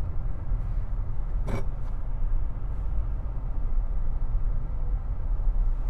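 Steady low rumble of road and engine noise inside the cabin of a moving Nissan sedan, with one brief click about a second and a half in.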